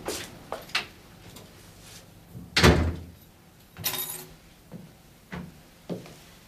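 A front door shut firmly about a third of the way in, with a short rattle just after it, then a few soft footsteps.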